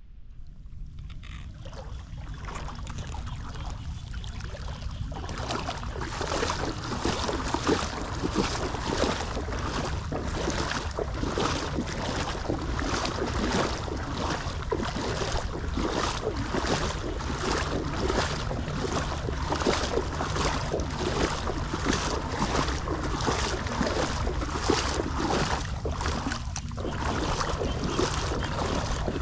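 Shallow floodwater on a road splashing in a steady rhythm of about two splashes a second as someone wades through it, over a low rumble of wind on the microphone. It grows louder over the first few seconds.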